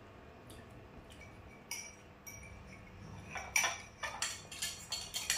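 Cutlery clinking against a plate: a few light taps, then a quick run of ringing clinks starting about three and a half seconds in.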